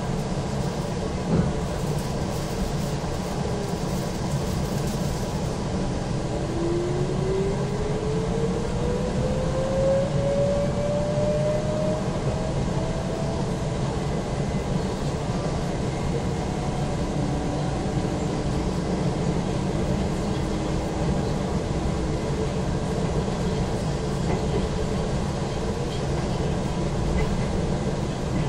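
Izukyu 2100 series electric train heard from inside the car as it pulls away from a station: a steady running rumble, with the motor whine rising in pitch over several seconds as the train accelerates, and a lower whine later on.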